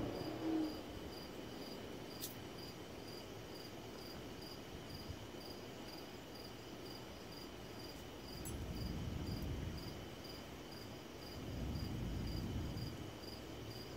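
Crickets chirping in a steady, evenly spaced rhythm over a continuous high trill. A low rumble swells twice in the second half.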